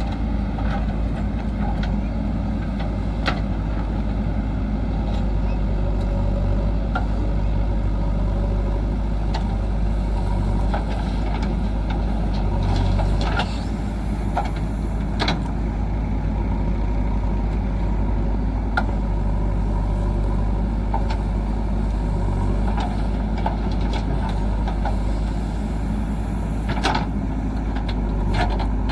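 Diesel engine of a JCB backhoe loader running steadily as it digs and loads soil, with a few sharp knocks scattered through.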